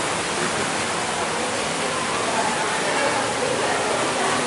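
Steady rushing water in a thermal cave bath, with faint voices of bathers under it.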